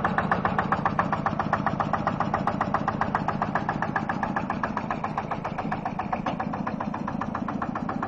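Vintage tractor engine idling close up, running with an even knocking beat of about seven or eight firings a second.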